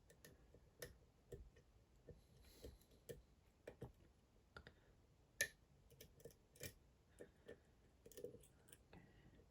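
Faint, irregular small clicks of a lock pick working the pins of a Dom IX Twinstar euro cylinder, a lock with two rows of pins. The clicks come a few times a second, and the clearest one falls about halfway through.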